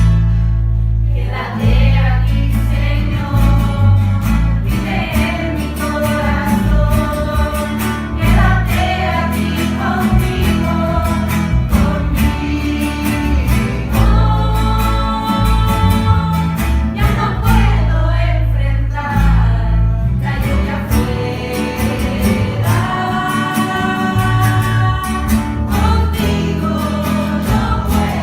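Christian worship song: voices singing in a choir over guitar and a strong bass line.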